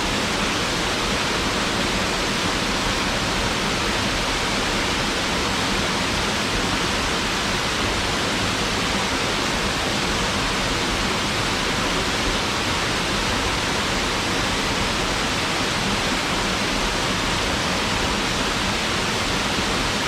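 Waterfall pouring steadily, an even rushing of falling water with no change in level.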